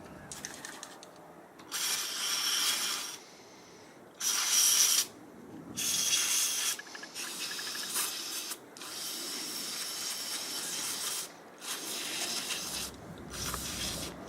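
Aerosol electric motor cleaner sprayed into a brushed RC motor in repeated hissing bursts, about seven, each one to two seconds long, with the loudest about four seconds in, flushing dirt and gunk out of the motor.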